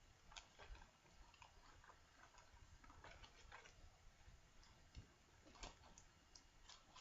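Near silence: room tone with faint, irregular light clicks and rustles.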